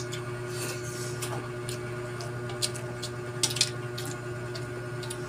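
Close-up eating sounds: shrimp and mussel shells being handled and picked apart by hand, with wet chewing and mouth clicks coming as scattered sharp crackles, over a steady low hum.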